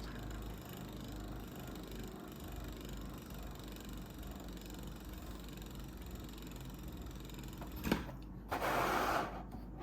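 A Storm Pegasis 105RF Beyblade spins on its rubber flat tip in a plastic stadium, making a steady whirring scrape. Near the end there is a sharp click and then a brief burst of rustling noise.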